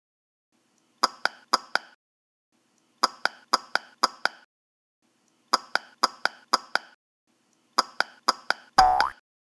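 Sharp clicky footstep sounds in quick runs of three to five, about four a second, with dead silence between the runs. Near the end comes a short sound that falls in pitch.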